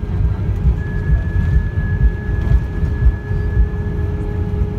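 Cabin noise of an Airbus A319 rolling along the ground after landing: a loud, steady low rumble with constant fluttering, under faint steady hums. A thin high whine comes in about a second in and fades near the end.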